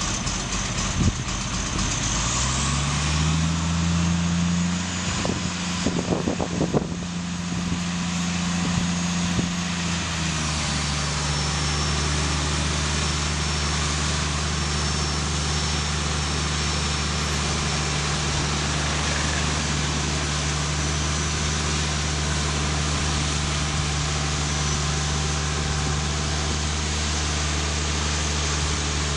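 Atlas L8 drilling rig's diesel engine running: it speeds up about two seconds in, holds, then settles to a lower steady speed about ten seconds in. A few knocks are heard around six to seven seconds in.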